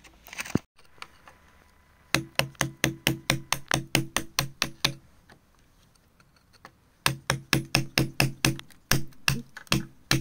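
A metal chisel tool striking gravelly earth around a buried agate stone in quick, even taps, about five a second. The taps come in two runs with a pause of about two seconds between them.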